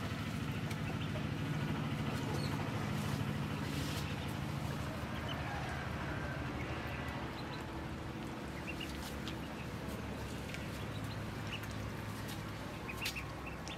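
Ducklings peeping in short, scattered high chirps while they swim, over a steady low hum.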